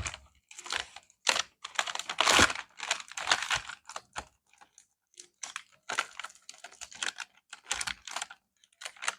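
Stationery packaging being handled and opened by hand: irregular bursts of crinkling and rustling with sharp clicks, the longest and loudest about two to two and a half seconds in.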